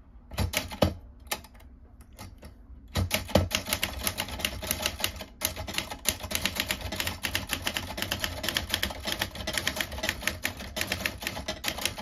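Everest K2 portable manual typewriter, a Jolson-badged model, being typed on. A few separate key strikes come in the first second and a half. From about three seconds in there is fast, continuous typing, several typebar strikes a second.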